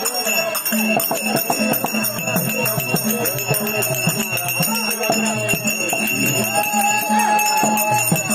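Therukoothu street-theatre music: steady jingling bells over repeated drum strokes and a low, broken drone, with one long held note a little before the end.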